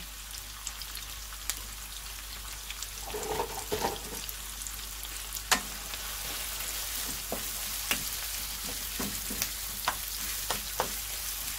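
Sliced onions sizzling steadily as they fry in a nonstick pan, on their way to golden brown. From about halfway, a wooden spatula stirs them, with scrapes and sharp taps against the pan.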